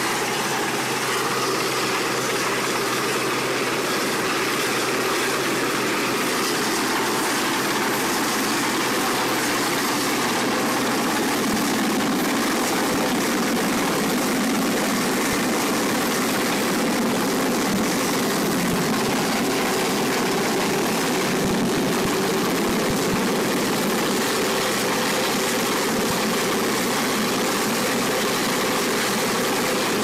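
Westland Sea King rescue helicopter hovering low overhead, its rotor and twin turbines making a loud, steady, dense noise.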